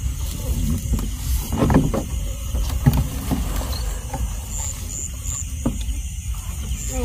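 Handling noise in a small boat on the water: irregular knocks and splashes over a steady low rumble.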